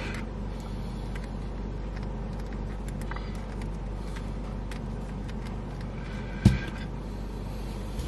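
Steady low background hum, with one sharp knock about six and a half seconds in as the toy gecko figurines are handled and knocked together.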